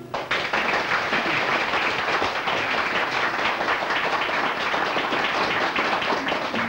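Audience applauding, a dense, steady clapping that starts abruptly as the music stops.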